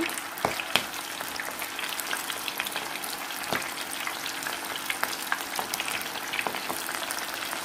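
Breadcrumb-coated marinated prawns deep-frying in hot refined oil in a kadai: a steady, dense crackle of popping oil with a few sharper pops as more pieces go in.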